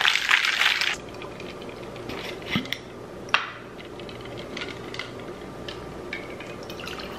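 Stainless steel cocktail shaker being shaken, its contents rattling hard, stopping about a second in. A couple of sharp metal clicks follow as the shaker's cap comes off, and near the end the drink begins to pour out through the strainer.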